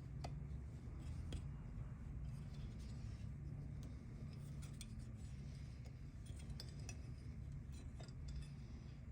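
Scattered light clicks and clinks of hand tools and small metal engine parts being handled, over a steady low hum.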